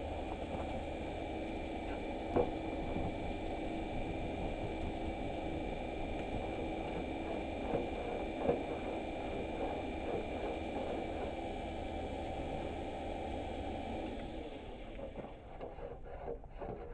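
A workshop machine motor running steadily with a hum, with a few light sharp clicks over it. The machine dies away about fifteen seconds in, followed by a few light knocks.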